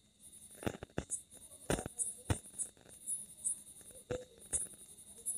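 Quiet background with faint high-pitched chirping, about two chirps a second, and several sharp clicks scattered through.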